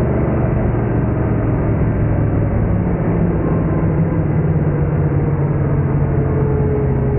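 Big-block Chevy V8 of a drag-racing dragster running steadily, with no big rise or fall in revs.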